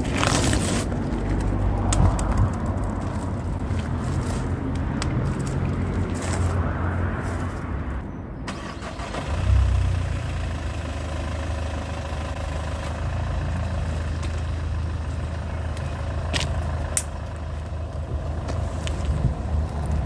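A car engine running close by, a steady low hum that swells louder about nine and a half seconds in.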